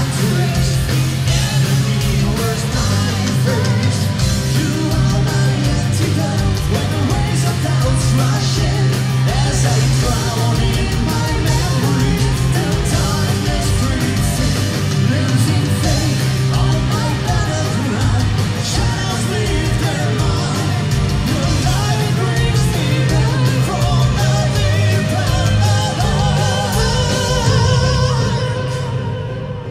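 Symphonic metal band playing live, heard at full volume: a female lead voice and a male voice singing over heavy drums, bass and guitars. The band drops out just before the end.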